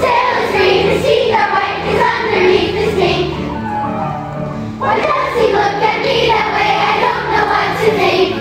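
Children's choir singing together over a backing accompaniment that holds steady low notes. There is a short break in the singing about five seconds in before the next phrase.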